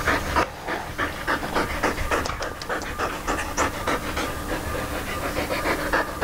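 Siberian husky panting: quick, even breaths, several a second.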